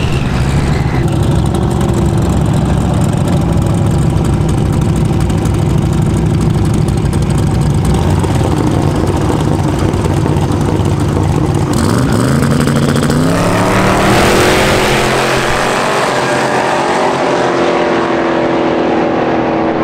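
Twin-turbo Camaro drag car running at the starting line beside another car. About twelve seconds in they launch, and the engine note rises as they accelerate away down the track.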